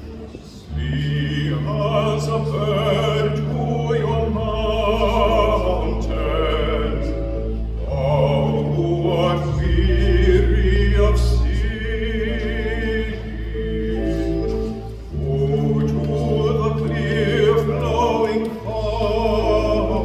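Baritone voice singing a sacred song in classical style with vibrato over sustained accompaniment chords, coming in about a second in.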